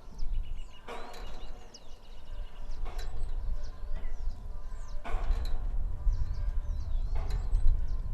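Water-pumping windmill on a farm making a brief noise from its mechanism about every two seconds, with wind rumbling on the microphone, louder from about five seconds in, and birds chirping.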